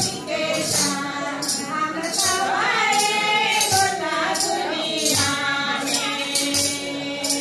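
A group of women singing a song together, with a tambourine shaken on a steady beat, about one to two strokes a second.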